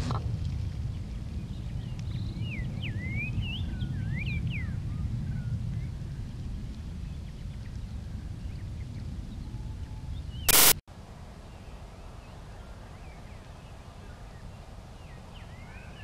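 Birds chirping in short rising and falling calls over a low rumble that fades after about six seconds. About ten and a half seconds in, a brief loud burst of noise cuts off sharply, and the background afterwards is quieter.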